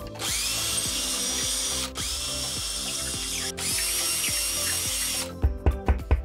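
Power drill boring into the ceiling in three runs with two short pauses, then a hammer tapping wall anchors into the drilled holes near the end, about four taps a second.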